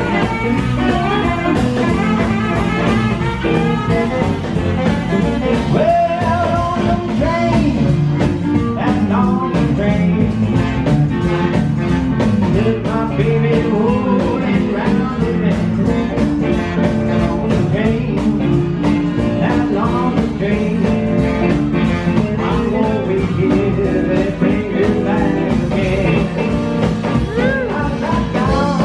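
Live swing band playing a blues number, with saxophones, electric guitar, electric keyboard and drums.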